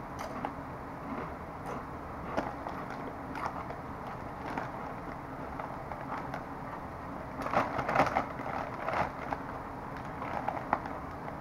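Close-up crunching of thick kettle-cooked potato chips being chewed, a scatter of sharp crackles. About seven and a half seconds in, a louder burst of crinkling as the chip bag is handled.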